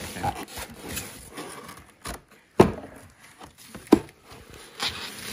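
Bubble wrap and cardboard rustling and scraping as hands rummage inside a packed shipping box, with two sharp knocks a little over a second apart, past the middle, as cardboard boxes bump.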